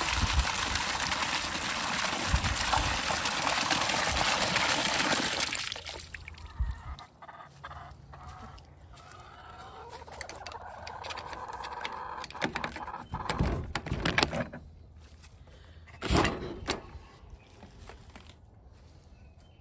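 Water gushing from the thawed valve of an IBC water tote for about the first six seconds, then cut off suddenly. After that, chickens clucking, with a few short, sharper sounds near the end.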